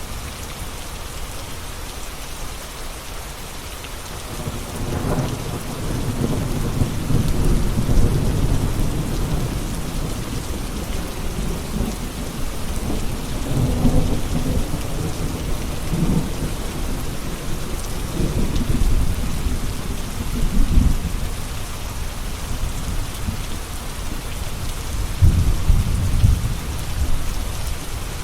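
Steady rain pouring down, with rolling thunder rumbling low from about four seconds in. The thunder swells and fades several times and is loudest near the end.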